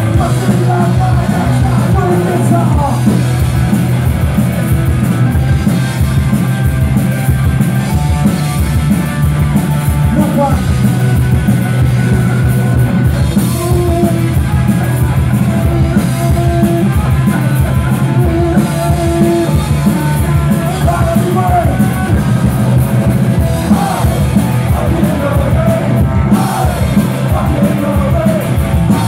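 Live punk rock band playing loud, with electric guitars, bass and drums, and a singer singing and shouting into a microphone.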